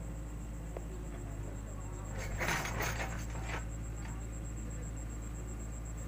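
Kubota DC-70 combine harvester's diesel engine running steadily. Several short, sharp noises come between about two and three and a half seconds in.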